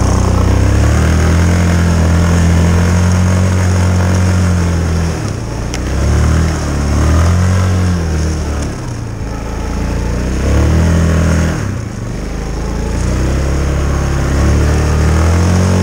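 Yamaha Kodiak 450 ATV engine revving in repeated surges as it is ridden through snow: the pitch climbs and falls back several times as the throttle is opened and eased off.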